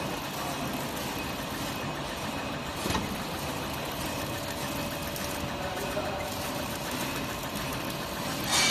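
CB-450XWS box-motion horizontal flow-wrap packing machine running steadily as its conveyor feeds whole birds into the wrapper, a continuous mechanical clatter and hum. There is a sharp click about three seconds in and a brief louder burst of noise near the end.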